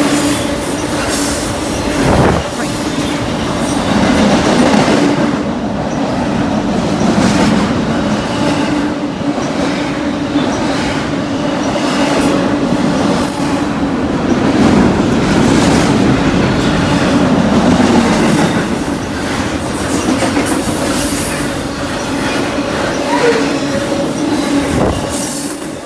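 Intermodal freight train's cars rolling steadily past at close range, wheels rumbling and clattering over the rail with a steady squeal underneath. There are sharp wheel knocks about two seconds in and again near the end.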